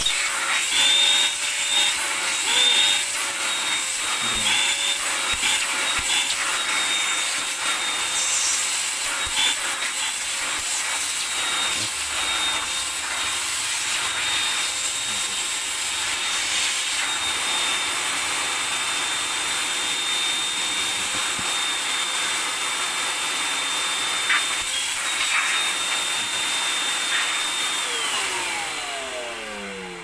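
EDON ED8-30L 1400 W wet/dry vacuum cleaner running, a steady rush of air with a high motor whine; the tone wavers over the first few seconds as the hose end is handled. Near the end the motor is switched off and winds down with a falling whine.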